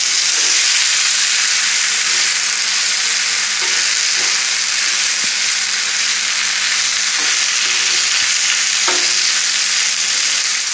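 Boiled taro (kochu) and ground spices sizzling steadily in hot oil in a wok as they are stirred and mixed.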